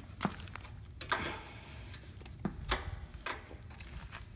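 A few scattered clicks and light knocks of a wrench working a nut and bolt.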